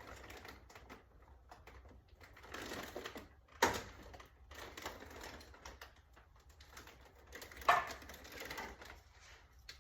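Scattered small clicks and rattles of parts being fitted by hand on a vending machine, with two sharper knocks about three and a half and eight seconds in.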